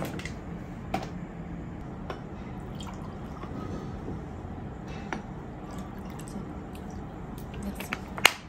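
Water being poured from a plastic bottle into stemmed wine glasses, dribbling as each glass fills, with a few light clicks and a sharper clink near the end.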